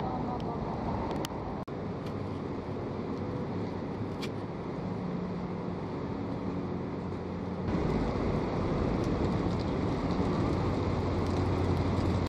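Steady city street traffic noise. It gets louder with a steady low engine hum from about eight seconds in.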